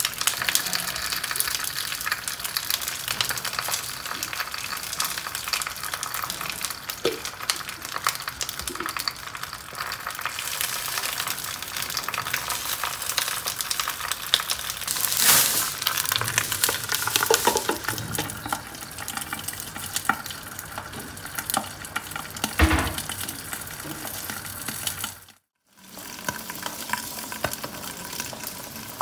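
Stingray pieces frying in sambal paste, a steady crackling sizzle with stirring strokes through it. The sound cuts out for about half a second near the end, then resumes.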